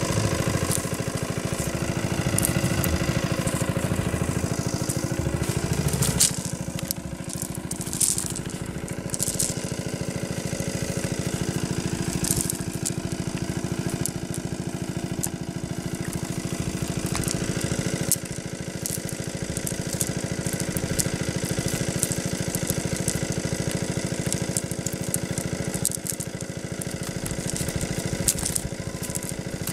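A small engine running steadily at a constant speed, with a few brief clicks over it.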